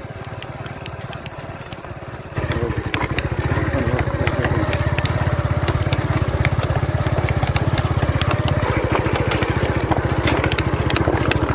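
Motorcycle engine running while riding along a rough dirt field track, with a rapid, even pulsing beat. It gets louder about two seconds in and then holds steady, with scattered clicks and rattles over it.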